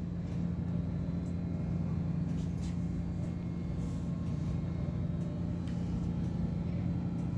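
Steady low hum of floating-dock machinery, running evenly without change.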